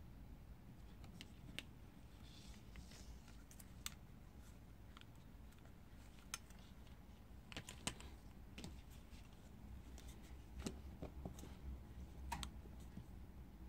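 Faint, scattered small clicks and taps as a plastic LED headlamp is handled on a tabletop, with a few sharper clicks around the middle and near the end, over a faint low hum.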